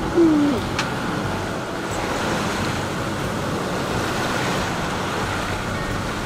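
A sailing yacht under engine in calm water: a steady engine drone mixed with the rush of water and wind. Near the start, a short falling vocal sound stands out above it.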